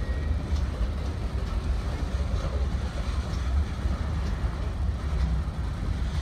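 Freight train of boxcars and tank cars rolling past on the track, a steady rumble of wheels on rail with faint clicks about once a second.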